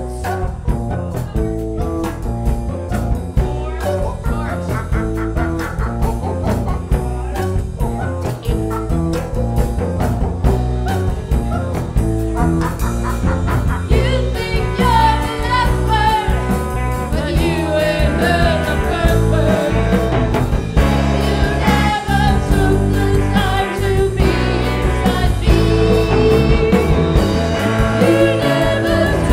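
A song played on guitar, with a singing voice carrying the melody from about halfway through.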